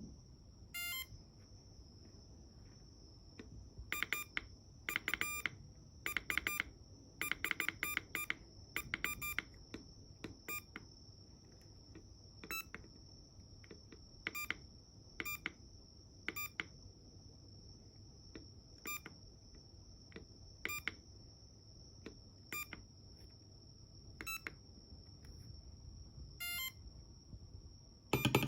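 Morse code sounded as beeps from an M5Stack's small speaker: short and long tones of one pitch in irregular groups, busiest between about 4 and 10 seconds in and again near the end. A steady faint high-pitched whine runs underneath.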